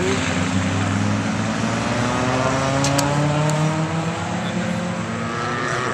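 Several race cars' engines running together as the cars pass and accelerate through a chicane, their overlapping engine notes slowly rising in pitch.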